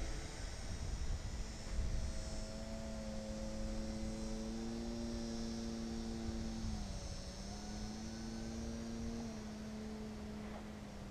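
TechOne Air Titan RC plane's electric motor and propeller whining high overhead: a steady hum whose pitch dips and rises slightly about two-thirds of the way through, slowly fading.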